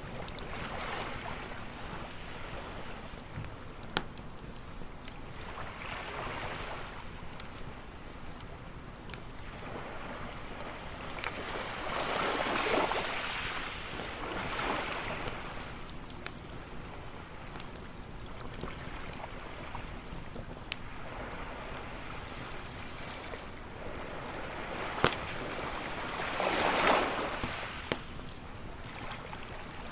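Waves washing in on a beach, swelling and receding several times, the biggest about halfway through and again near the end. Sharp pops and crackles from a burning campfire sound now and then over the surf.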